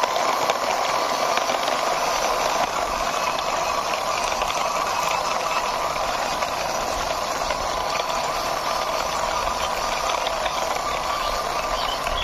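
Plastic toy car pushed by hand over rough concrete: its wheels and gears give a steady rattling whir.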